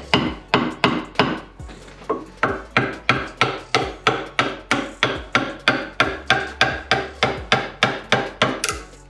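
Wooden mallet driving a wood chisel in quick, regular blows, about three a second, chopping out a recess for a mortise joint in a timber beam.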